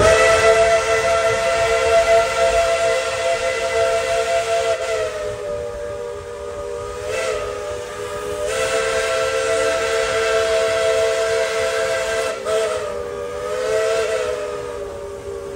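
Three-chime steam whistle of ET&WNC No. 12, a 1917 Baldwin narrow-gauge 4-6-0, blowing one long chord whose pitch sags briefly several times, with a hiss of steam.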